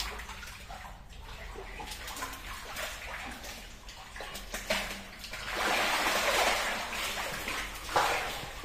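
Shallow muddy water sloshing and splashing as men wade and grope with their hands for fish, louder a little past the middle and with one sharp splash near the end.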